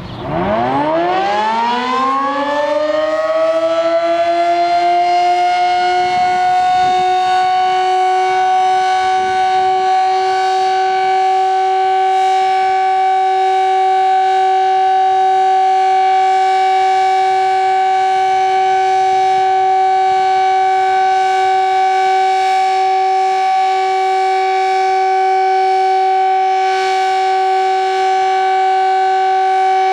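Sterling Model M civil defense siren, an 8/16-port unit in a custom housing, winding up with a steeply rising pitch over the first few seconds and then holding a steady chord of two tones an octave apart: a one-minute steady alert signal. It is loud and turns at a lower speed than most Sterlings.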